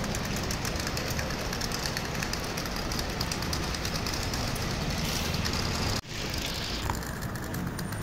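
Steady road traffic noise from vehicles running along a city street, broken by an abrupt cut about six seconds in.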